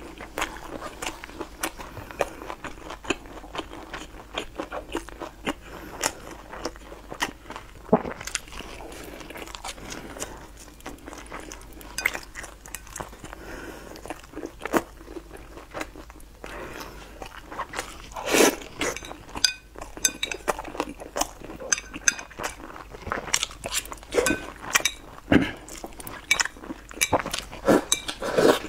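Close-miked eating sounds: crunching, biting and chewing of spicy seafood, heard as many sharp clicks and smacks, thickest in the last third.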